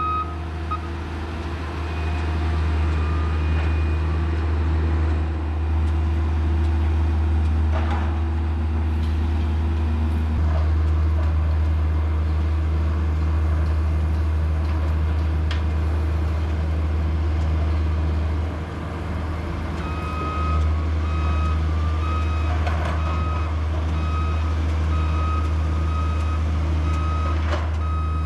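Heavy earthmoving machine's diesel engine running steadily, with its reversing alarm beeping at the very start and again through the last third. A few faint knocks come through now and then.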